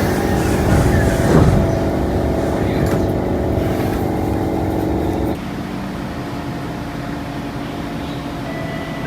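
Singapore MRT trains standing at a platform: a steady electrical hum and whine of held tones from the train's equipment, with a falling tone about a second in. About five seconds in the sound changes abruptly to a quieter, steady hum from another train.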